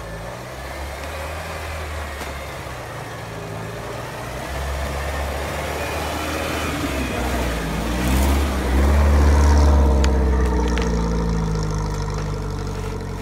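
Modified UAZ-469 off-road vehicle's engine running under load as it drives through snow, the engine note rising and falling with the throttle. It grows louder as the vehicle comes past, is loudest about two-thirds of the way through, then fades as it pulls away.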